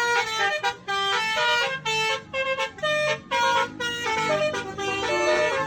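Indonesian 'telolet' multi-tone bus horn of the Basuri type playing a quick tune. Its short notes step up and down in pitch, with brief breaks between phrases.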